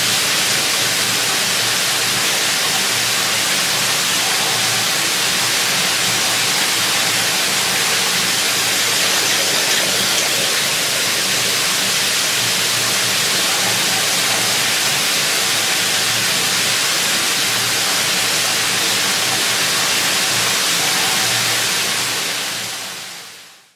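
Steady, loud rushing hiss that fades out over the last second or two.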